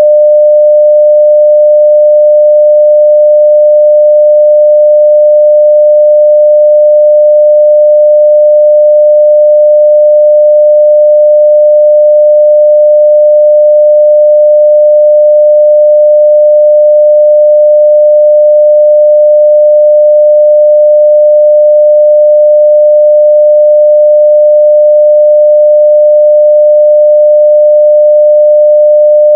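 Continuous 600 Hz sine-wave test tone at full level (0 dB), steady and unbroken, with no change in pitch or loudness.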